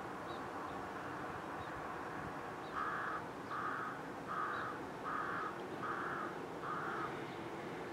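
A crow cawing six times in a steady series, about one caw every two-thirds of a second, starting about three seconds in, over a faint steady background hiss.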